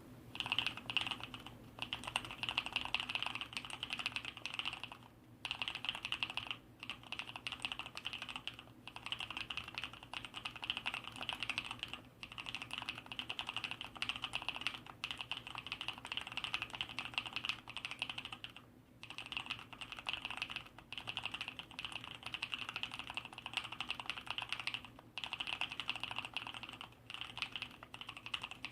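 Fast, continuous typing on an ABKO Hacker K680 mechanical keyboard with Kailh Red linear switches, which have quick-lubed sliders, lubed stabilizers and sound-dampening fill. The keystrokes are steady, with short pauses every few seconds.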